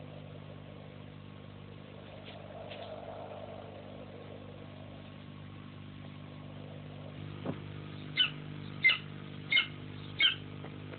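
Golden eagle giving four short, high yelping calls about two-thirds of a second apart near the end, over a steady low hum from the old film soundtrack.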